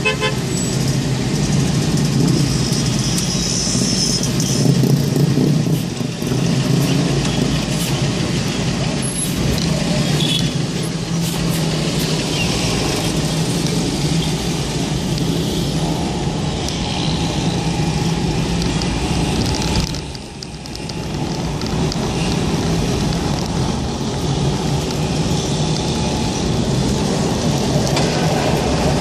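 Road traffic noise heard from a car driving through city traffic: a steady mix of engine and tyre noise, with a brief drop in loudness about two-thirds of the way through.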